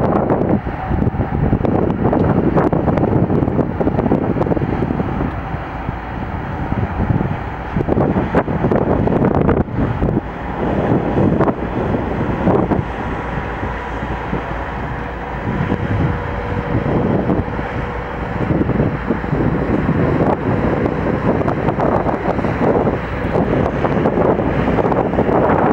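Diesel locomotive hauling a freight train of open wagons past, engine running steadily under the rumble of the train. Wind buffets the microphone throughout.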